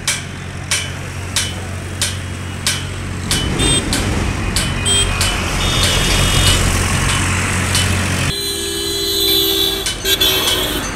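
A motor vehicle engine running nearby as a steady low hum, with a regular ticking in the first few seconds. About eight seconds in, a vehicle horn toots for roughly two seconds.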